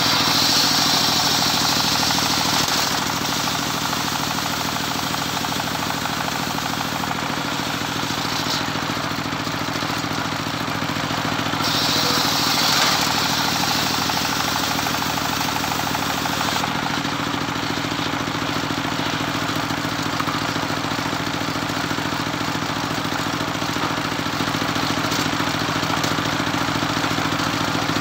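Engine-driven homemade circular saw running steadily, with spells of higher hiss as the blade cuts teak: one in the first three seconds and a longer one from about twelve to seventeen seconds in.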